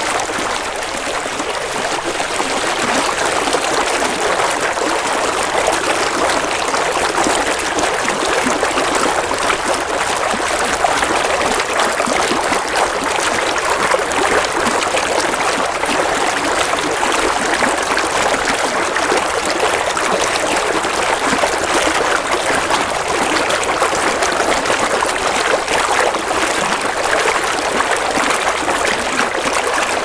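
A shallow stream of water running and trickling over stones, a steady bubbling rush with no pauses.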